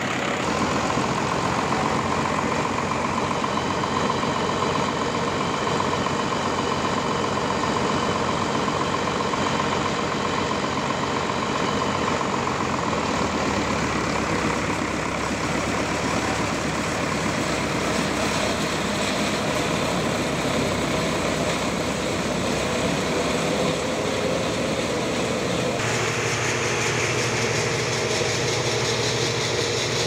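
Sawmill machinery running steadily, with an engine-like drone. The pitch and character shift abruptly about halfway through and again near the end.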